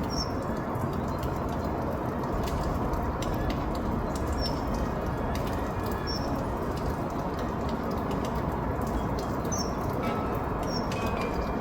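A small bird chirping five short, high calls spaced a few seconds apart, over a steady rushing background noise.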